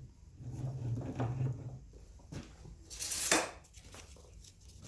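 Metal tools and parts being handled, with light clinks and rattles and one louder clatter about three seconds in.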